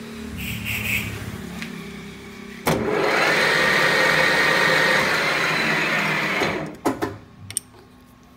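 Metal lathe switched on about two and a half seconds in, spinning a scooter's centrifugal clutch shoe assembly in its chuck with a steady running noise and a faint whine for about four seconds, then stopping. Light metallic clicks and handling of the part come before and after.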